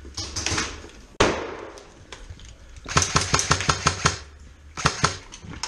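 A sudden sharp bang about a second in. Then a rapid burst of about ten airsoft rifle shots, followed by a few single shots near the end.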